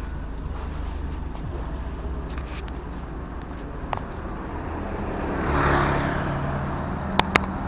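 Street ambience with a steady low rumble. From about five seconds in, a motor scooter comes up and passes close by, its small engine running as the sound swells. Two sharp clicks follow near the end.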